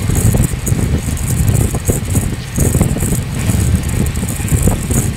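Neelanchal Express passenger train running at speed: a steady low rumble of the wheels on the rails, with continuous rattling and clatter from the coach.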